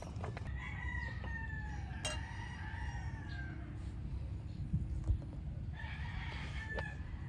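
A rooster crowing: one long crow about half a second in, lasting nearly three seconds, and a fainter call near the end. A light knock about five seconds in.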